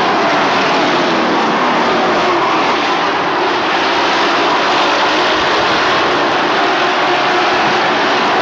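Racing pickup trucks' engines running hard as they lap the oval, a loud continuous drone whose pitch rises and falls as the trucks accelerate and pass.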